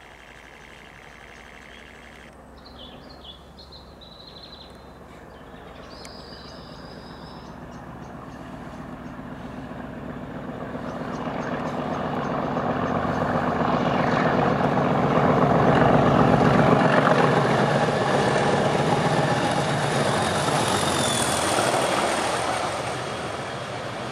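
English Electric diesel locomotives, a Class 37 and a Class 20, approaching under power and passing with their engines thrashing. The sound grows steadily to a peak about two-thirds of the way through, then fades as the train draws away.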